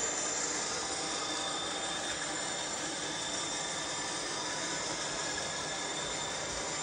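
Small camera drone's propellers whirring steadily as it hovers, a constant hiss with a high whine in it.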